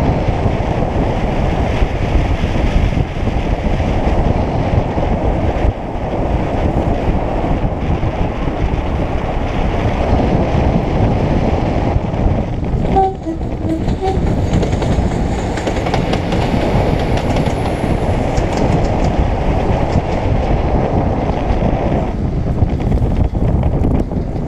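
Steady wind rushing over the microphone of a paraglider in flight. About halfway through comes a brief two-note train horn toot.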